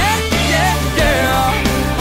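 Country-rock band playing loudly: drums, electric bass and guitars, with a sliding melody line on top.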